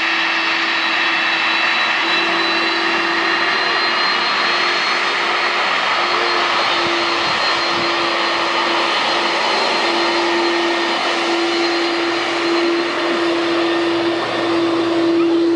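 Jet airliner engines running: a steady loud rush with high, steady whining tones.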